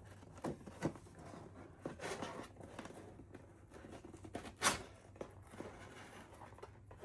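Handling noises as small craft pieces and gift items are moved about: a few light taps and knocks with some rustling, the loudest knock about two-thirds of the way through, over a faint steady hum.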